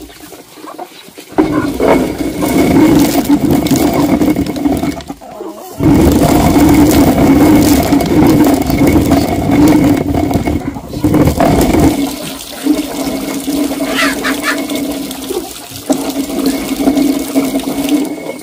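Water running and splashing over a steady low hum. It breaks off briefly about five seconds in and is loudest from about six to twelve seconds in.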